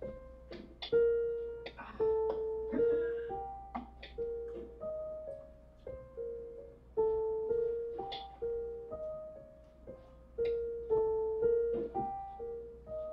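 Digital synthesizer keyboard played with a piano-like sound: an unhurried melody of single notes over a repeated lower note, each note struck and then fading.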